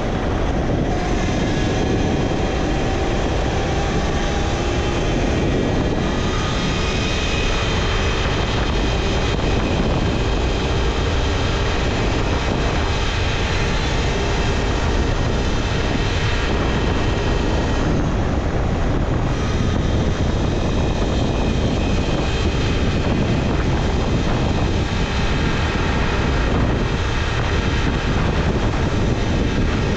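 Talaria Sting R electric dirt bike under way: steady wind rushing over the camera microphone, with a thin whine from the electric motor and drivetrain that shifts slowly in pitch as the speed changes.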